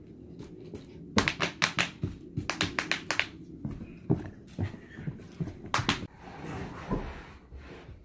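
Play with a Siberian Husky puppy: a fast run of sharp taps and knocks about a second in, then scattered knocks and thumps.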